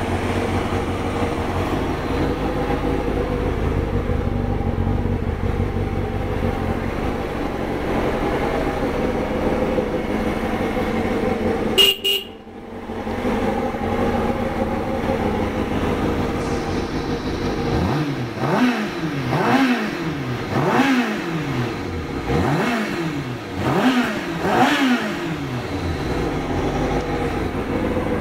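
Kawasaki ZX-6R 636 inline-four engine idling steadily, with a short horn beep about twelve seconds in. Later the engine is blipped and revved about six times in quick succession, each rev rising and falling back to idle.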